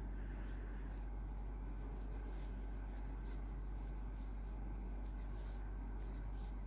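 Faint, scratchy rustling of a crochet hook drawing loofah yarn through a puff stitch, over a steady low hum.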